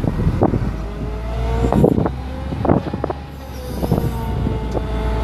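International DT466E diesel engine of a digger derrick truck running, with irregular knocks a few times a second and a steady whine that comes in about a second and a half in.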